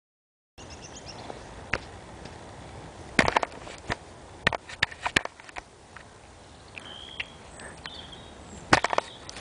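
A cat sniffing right at the microphone, its nose and fur bumping and rubbing the phone in several sharp knocks over a steady outdoor hiss. A few short bird chirps come about seven seconds in.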